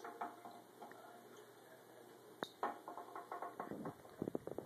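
A tin putt-putt (pop-pop) steam boat's fire-heated boiler running with a rapid, faint clicking. The clicks start about halfway through and get louder and closer together toward the end.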